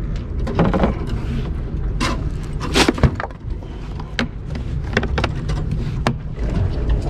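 A hard plastic cooler's rubber T-latches being unhooked and the lid handled, giving a string of sharp knocks and clacks, loudest about three seconds in, over a steady low rumble.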